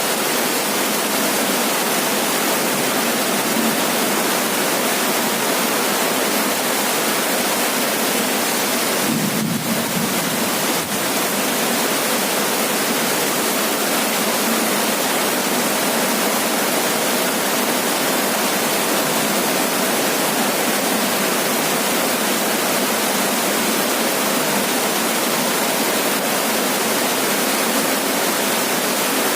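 Heavy rain falling on a roof, a loud steady hiss with a brief slight dip about ten seconds in.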